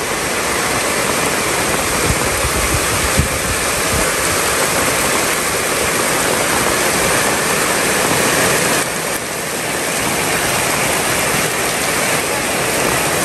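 Heavy tropical downpour: a loud, steady, dense hiss of pouring rain, which the people there call really noisy. A few low thumps come through about two to four seconds in.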